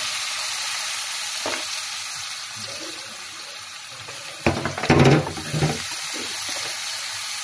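Chopped onions sizzling in hot oil in a kadai, stirred with a wooden spatula. A louder knocking scrape comes about four and a half seconds in.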